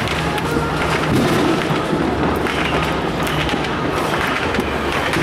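Distant fireworks going off across the neighbourhood, many overlapping bangs and pops over a steady low background noise.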